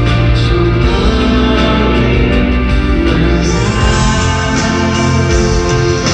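Live band playing a pop-rock song loud and full, with a sung vocal line over it.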